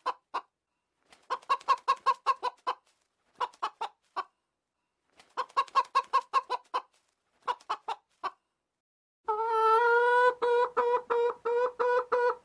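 Domestic chicken clucking in quick runs of short clucks separated by brief pauses. For the last three seconds or so it gives a longer, unbroken pulsing call.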